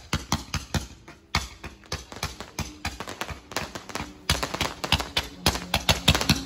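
Aerial firework barrage going off in a rapid volley of bangs and crackles, about five or six reports a second without let-up.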